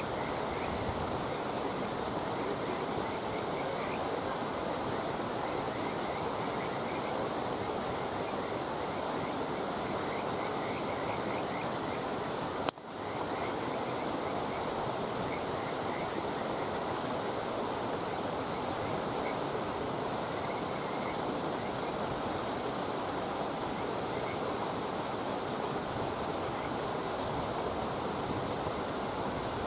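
A steady rushing outdoor noise, with faint high chirps now and then and one sharp click a little before halfway.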